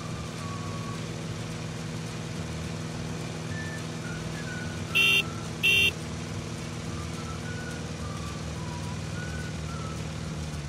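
Engine sound effect of a motor vehicle running steadily, with two short, loud, high horn beeps about halfway through, half a second apart.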